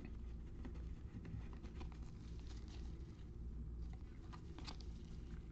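Faint rustling and light clicking of a stack of baseball trading cards being handled and flipped through by gloved hands.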